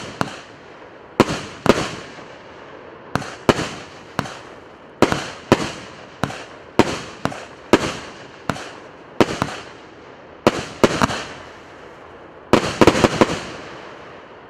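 A 48-shot, 1.2-inch consumer fireworks cake firing: sharp bangs come about every half second, each followed by a fading crackle. Near the end a quick volley of several bangs closes the show, and then the sound dies away.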